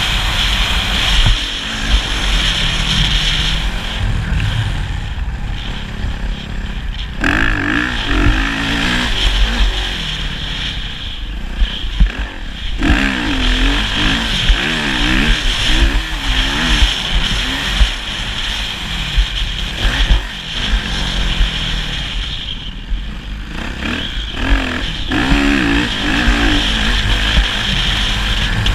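Motocross bike engine revving up and down again and again as it is ridden, with heavy wind rumble and a few sharp knocks.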